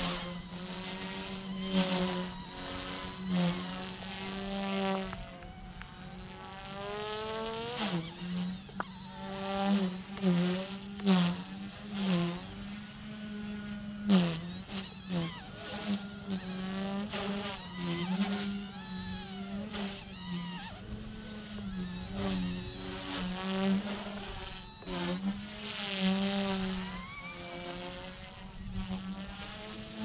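OMPHobby M1 small electric RC helicopter flying: a buzzing whine from its motor and rotors, its pitch dipping and recovering again and again as it manoeuvres. Its higher overtones sweep up and down as it passes.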